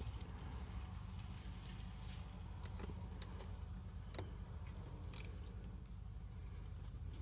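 Scattered light metallic clicks and ticks of a wrench working the bolts on an AC compressor clutch plate, irregular rather than a steady ratchet rhythm, over a low steady hum.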